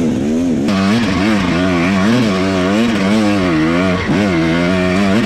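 Dirt bike engine under hard off-road riding, the revs rising and falling about twice a second as the throttle is worked on and off. The sound turns harsher and hissier less than a second in.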